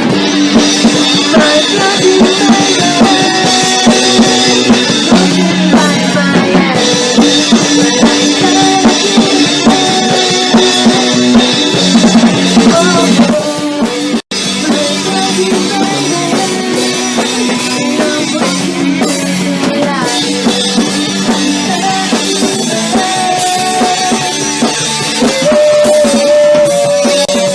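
Rock band music driven by a full drum kit, with bass drum and snare, under held melodic lines. The sound drops out for an instant about halfway through.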